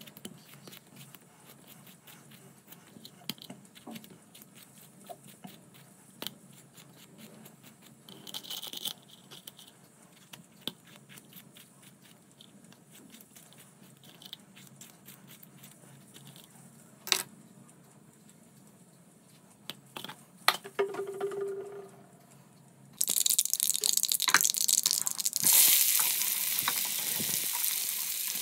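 Scattered small clicks and taps of kitchen handling, then near the end ingredients go into hot oil and a loud frying sizzle starts, growing stronger a couple of seconds later.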